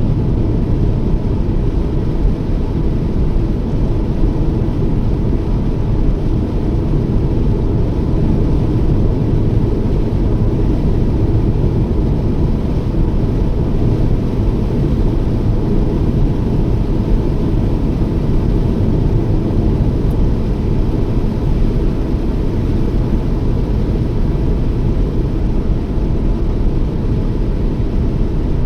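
Toyota Yaris driving at a steady cruising speed: a steady low rumble of tyre, road and engine noise with no changes.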